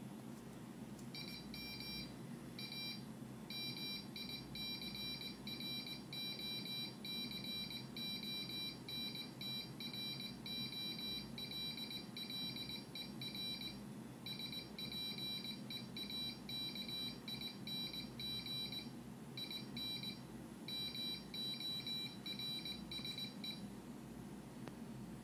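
Piezo buzzer beeping out text as Morse code: a high-pitched tone keyed on and off in short and longer beeps, with longer pauses between groups. It starts about a second in and stops shortly before the end, over a steady low hum.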